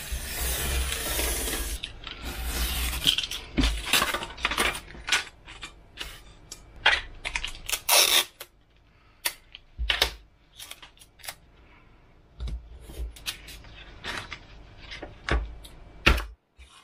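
Utility knife drawn through a sheet of Depron foam along a steel ruler, a continuous scratchy cutting sound for about two seconds. It is followed by a string of sharp clicks and knocks as the foam pieces, ruler and tools are handled on a wooden table.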